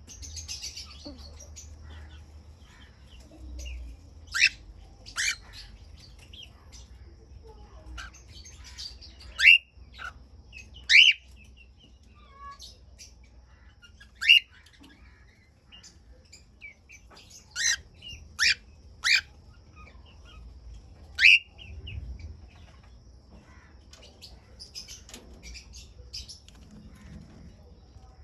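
Cockatiels giving sharp, rising contact calls, about nine loud ones spread through, over softer twittering from other birds and a faint steady high tone.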